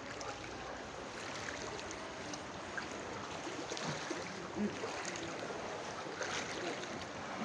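Floodwater sloshing and running, a steady noise of moving water.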